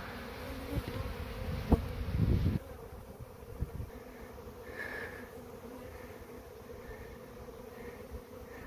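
Swarm of thousands of honeybees buzzing in a steady drone around an open hive. A sharp knock and a short rustle come about two seconds in, then the sound drops quieter at about two and a half seconds.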